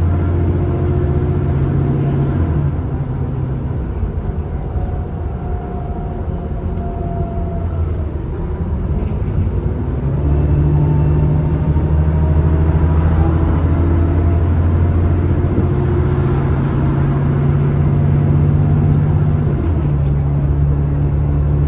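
Diesel engine of an Alexander Dennis Enviro400 (E40D) double-decker bus running, heard on board: its low note eases off and drops about three seconds in, then picks up strongly again about ten seconds in as the bus pulls away, with a short dip near the end.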